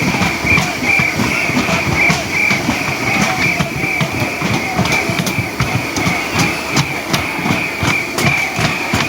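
A large firework spraying continuously, with a steady rushing noise and irregular sharp crackles two or three times a second.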